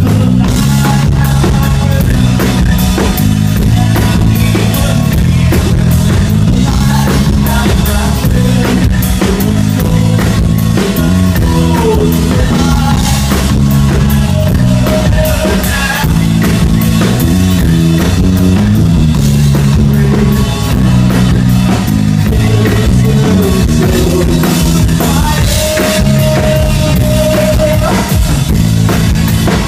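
A live band playing an instrumental passage of a rock song with a driving drum kit and sustained bass, loud as heard from the audience.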